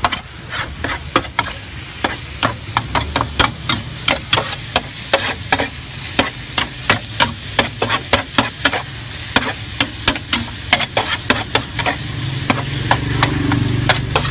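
Metal spatula clacking and scraping against a flat griddle in quick, repeated strokes, about two to three a second, while short noodles with bean sprouts and chives are stir-fried in a steady sizzle.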